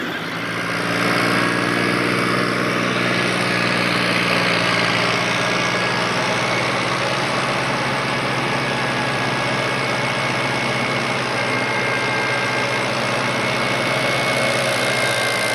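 Engine of wheat-harvesting farm machinery running steadily, with a thin high whine over it; the sound swells slightly about a second in, then holds.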